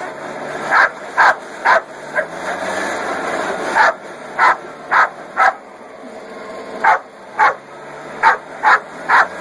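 Dog barking at the air stream of a blower aimed at its face, about a dozen short sharp barks in quick clusters, over the steady rush and hum of the blower.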